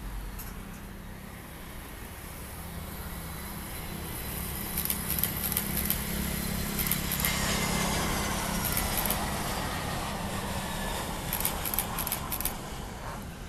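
Airliner jet engines on final approach: the sound swells about four seconds in, and as the Airbus A320 passes a whine falls steadily in pitch, then eases off as it touches down on the runway.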